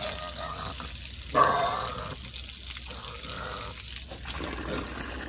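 Garden-hose water spraying onto a pig and the wet ground, with a pig grunting now and then, the loudest grunt about a second and a half in.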